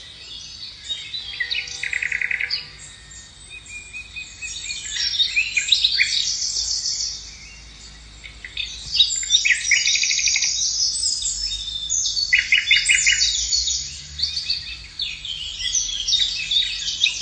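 Several small birds singing and chirping at once, overlapping rapid trills and twitters in bursts with short lulls.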